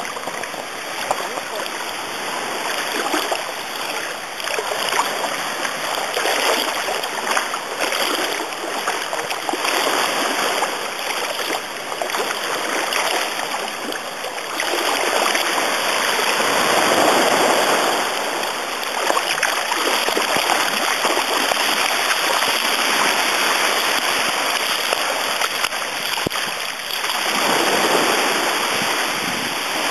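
Continuous sloshing and splashing of shallow seawater as a small dog swims and wades through the shallows, getting louder about halfway through.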